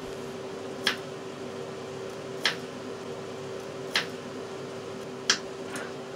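Knife chopping on a wooden cutting board: four sharp chops about a second and a half apart, with a fainter fifth near the end, over a steady hum.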